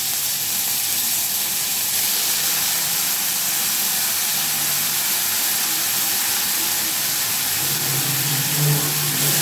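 Wet onion-garlic paste sizzling in hot oil in a wok, a steady hiss as the water in the paste boils off as steam.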